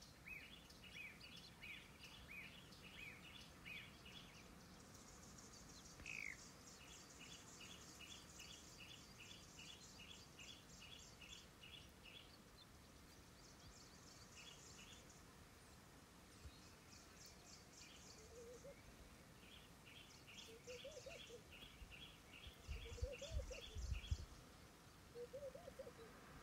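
Birds calling from the bush, faint: rapid runs of short repeated chirping notes at two different pitches, coming and going throughout. In the last third, lower rising-and-falling calls join in, with a few low rumbles near the end.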